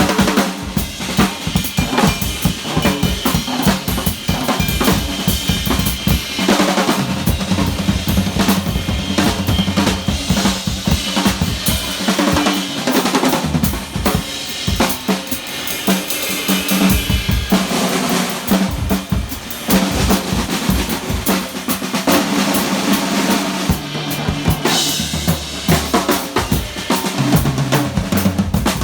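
Two drummers on drum kits trading a live drum battle: rapid snare, rimshot and kick-drum hits with fills, over a bass guitar line of held low notes.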